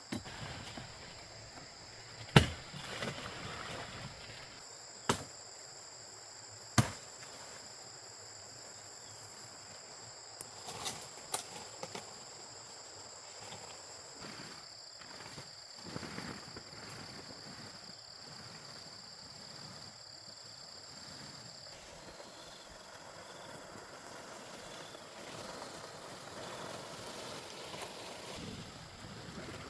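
Steady high-pitched insect drone that stops about twenty-two seconds in, with a few sharp knocks over it, the three loudest in the first seven seconds.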